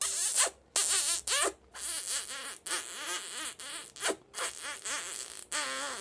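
An African grey parrot and a woman kissing, her lips pressed to its beak: a quick run of short smacking kiss sounds mixed with squeaky, warbling chirps, one after another with brief gaps.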